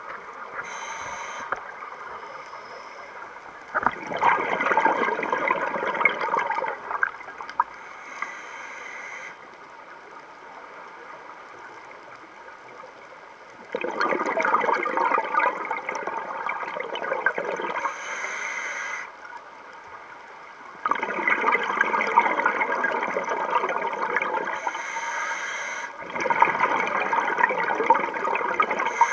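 Scuba diver breathing through a regulator underwater: four bursts of exhaled air bubbling out, each lasting a few seconds, with quieter gaps between breaths.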